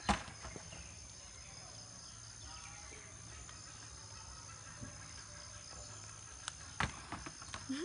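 Whole coconuts knocking as they are tossed by hand onto a pile of other coconuts: one sharp knock right at the start and another about seven seconds in, with a few lighter knocks near the end, over a steady high tone.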